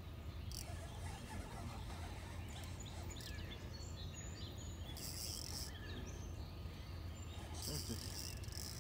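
Spinning reel's drag buzzing in three short bursts as a hooked fish pulls line off against it, about half a second in, around five seconds in, and near the end, over a steady low background rumble.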